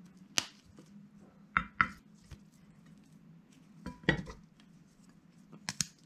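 Fresh garlic scapes snapped by hand: about half a dozen short, sharp cracks, some in quick pairs. A clean snap is the test that the stem is tender and need not be trimmed.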